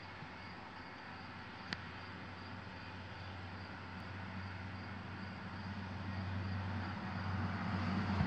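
Steady faint background noise with a low hum that slowly grows louder, and a single faint click about two seconds in.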